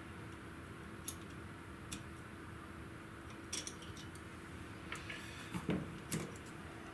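Sparse light clicks and taps of small metal RC parts and tools being handled, over a faint steady hum.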